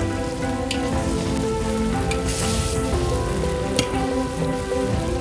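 Large chunks of meat and onions frying in oil in a cast-iron kazan: a steady sizzle with a few sharp pops. Background music with held notes plays over it.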